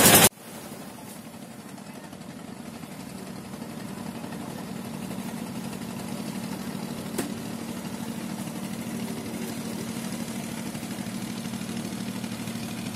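A fishing boat's engine running steadily with a low hum, slowly growing louder over the first several seconds; a single short click sounds about seven seconds in.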